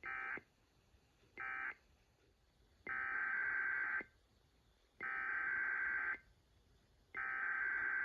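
Emergency Alert System SAME digital data bursts, a harsh buzzing modem-like tone. First come two short end-of-message bursts, then three longer header bursts of about a second each, evenly spaced, which begin the next alert.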